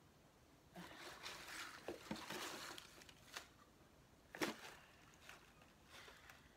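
Faint rustling and crinkling of paper packing as the contents of a cardboard box are searched through, with small clicks, then one sharp click a little past the middle.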